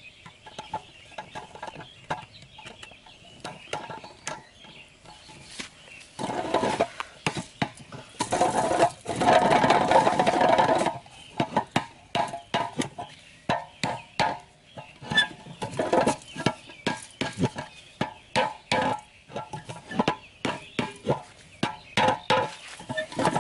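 Irregular knocks and taps of a machete working a bamboo stake and a metal tin can, with a louder continuous stretch from about six to eleven seconds in.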